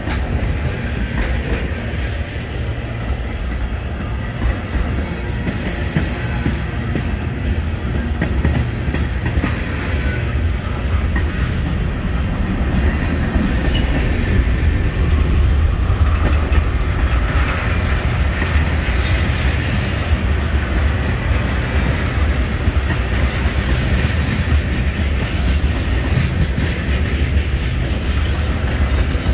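Freight cars rolling past close by: a steady rumble of steel wheels on rail with clickety-clack over the rail joints, swelling in the middle. A couple of brief high-pitched wheel squeals cut through.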